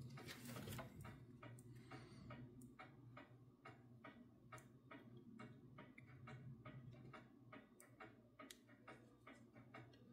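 Near silence: faint, regular ticking, about three ticks a second, over a low steady hum.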